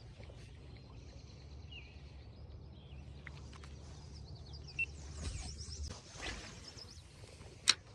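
Faint outdoor ambience: small birds chirping in short high runs over a low steady rumble, with one sharp click near the end.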